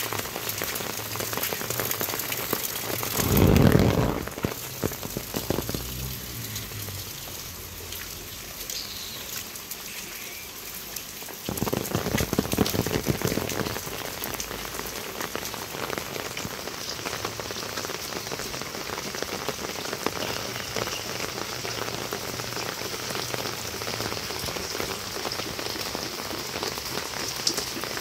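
Heavy rain falling steadily, a constant hiss of drops on roofs, paths and plants, with two louder swells of noise about four seconds in and again around twelve seconds in.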